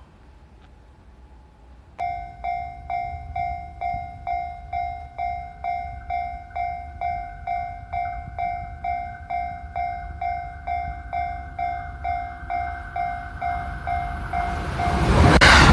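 Japanese level-crossing warning bell starts about two seconds in and rings steadily, about twice a second. Near the end a train arrives at the crossing, its loud running noise swelling up and drowning out the bell.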